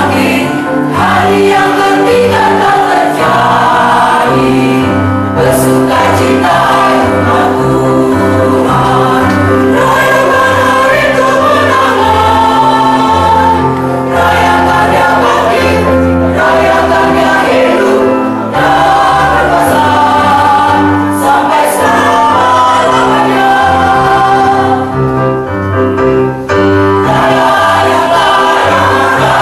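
Mixed church choir of men and women singing a Christian song together in harmony, several parts holding chords at once.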